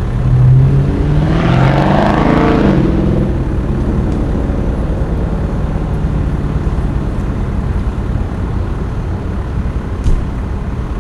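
Fire truck's diesel engine running steadily, with a swell of louder engine noise over the first three seconds.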